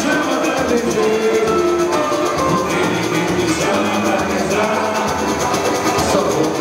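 Live carnival band playing an upbeat Brazilian tune, with brass, acoustic guitar and hand percussion.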